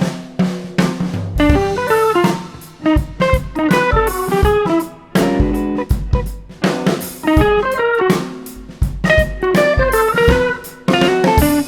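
Background music: an electric guitar tune over a drum kit beat.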